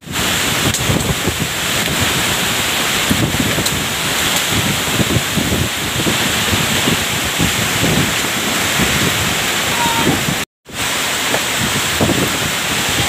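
Typhoon winds and heavy rain: a steady hiss of downpour with strong gusts buffeting the microphone. It is broken by a short gap about ten seconds in.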